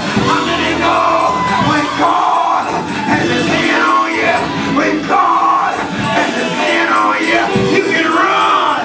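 Church praise break: loud live gospel music with the congregation shouting, cheering and clapping along.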